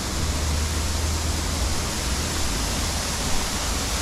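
Steady rushing of falling water from a garden waterfall, with a low rumble underneath.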